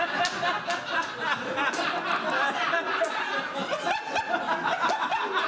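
Audience laughing, many voices chuckling and laughing at once, with one person's repeated ha-ha-ha laugh coming through near the end.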